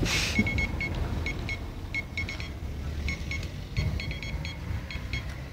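Short electronic beeps at a single pitch, tapped out in irregular groups of dots like Morse code, over a steady low rumble.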